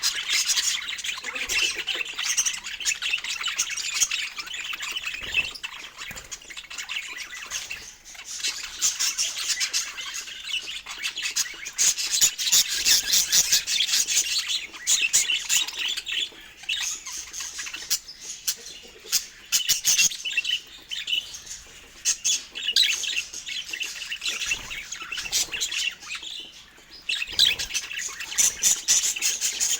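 Budgerigars chirping and warbling in a busy, continuous chatter, with many quick clicks mixed in. The chatter eases briefly twice.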